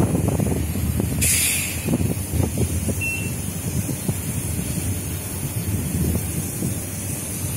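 Renfe class 465 (Civia) electric commuter train at a station platform, a steady low rumble, with a short sharp hiss of compressed air about a second in.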